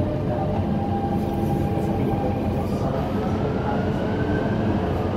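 Dubai Metro train running through an underground tunnel, heard from inside the car: a steady heavy rumble of wheels on rail, with a thin whine that rises in pitch from about three seconds in.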